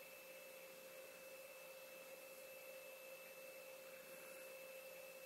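Near silence: faint steady hiss with a thin, even whine of a few constant tones.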